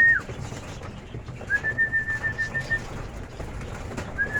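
Pigeon fancier's trilled whistle held at one high pitch, calling homing pigeons in to trap at the loft. It starts about a second and a half in, lasts just over a second, and comes again near the end.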